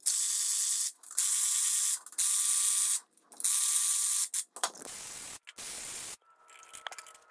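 Power ratchet spinning bolts out of an LS V8 engine block, in about six short runs: four louder runs of about a second each, then two quieter, shorter ones.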